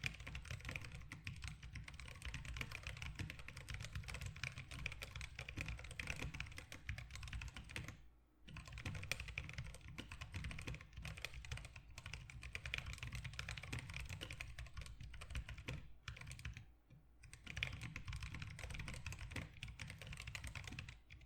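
Fast continuous typing on a split ortholinear mechanical keyboard with lubed Zealios V2 62g tactile switches, MDA keycaps and a 3D-printed PLA case: a dense stream of key clacks, pausing briefly twice.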